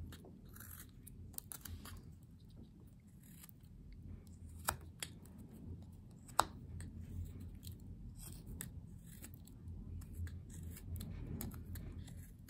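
Whittling knife paring thin shavings from a small wooden block: faint, crisp snicks and scrapes of the blade through the wood, with two sharper clicks near the middle.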